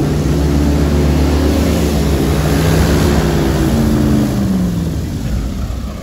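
Airboat's engine and caged air propeller running loud as it pulls away across shallow floodwater, its pitch rising and falling, then fading near the end.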